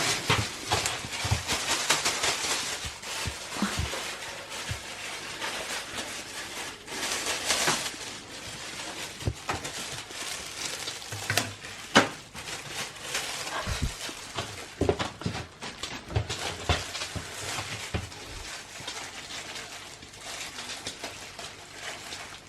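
Handling noises while unpacking a plastic dehumidifier: rustling with scattered clicks and knocks, one sharper knock about halfway through.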